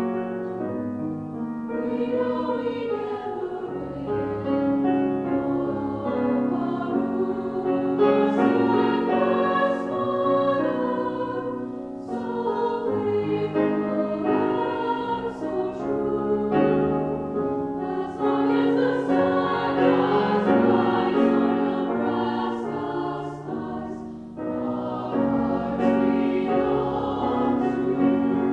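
Mixed choir of men's and women's voices singing a choral anthem in full chords, accompanied by a grand piano. Crisp 's' consonants cut through here and there, and the sound dips briefly near the end before swelling again.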